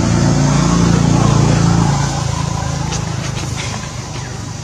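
A motor engine running steadily, loudest about a second in and then slowly fading, with a few faint ticks a little after the middle.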